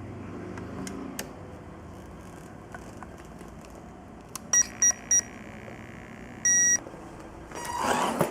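RC car electronic speed controller beeping as the battery is connected: three short beeps, then one longer beep. Near the end comes a brief louder burst as the brushed motor spins up.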